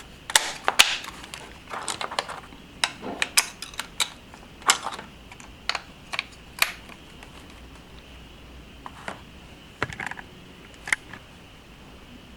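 Sharp plastic clicks and snaps of an air-conditioner remote's case being handled and clipped back together: a busy run of clicks for about five seconds, then a few scattered ones.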